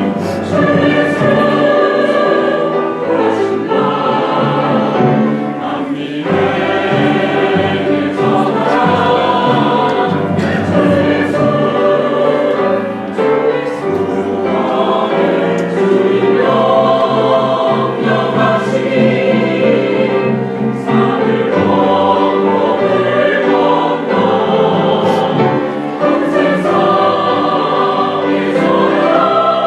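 Church choir singing a sacred anthem in several parts, with sustained chords changing every second or so.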